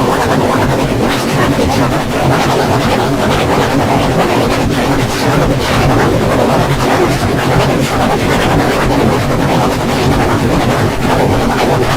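Steam locomotive running, a loud steady noise.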